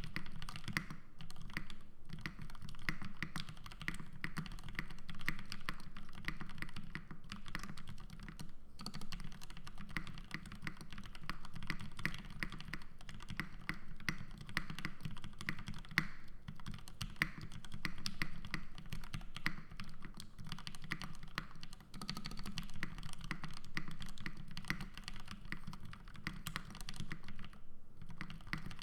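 Custom Bisoromi RS mechanical keyboard with Gateron Ink V2 linear switches and GMK doubleshot ABS keycaps being typed on continuously: a fast, dense run of keystrokes with a few brief pauses.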